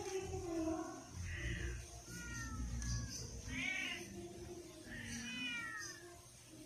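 A cat meowing several times, each meow rising and then falling in pitch, about a second and a half apart.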